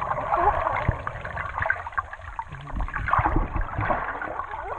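Sea water sloshing and gurgling, with a low rumble underneath.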